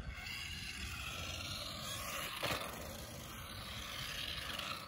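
Electric motor and drivetrain of a Bezgar 6 RC truck whining as it drives, the pitch sliding up and down with its speed, with one sharp knock about halfway through.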